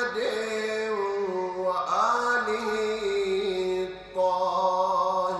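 A man's solo voice chanting an Arabic Ramadan supplication (du'a) in long, drawn-out melodic notes with gliding turns between them. There is a brief break about four seconds in.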